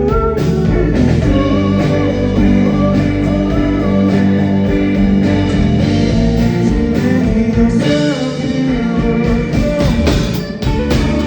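A rock band playing live, with guitar to the fore over bass and drums and some notes bending up and down.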